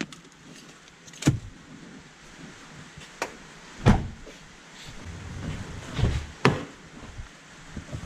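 Things being handled in and around a vehicle: four sharp knocks and clicks, about a second in, near three and four seconds, and at six and a half seconds, with rustling and clatter between them.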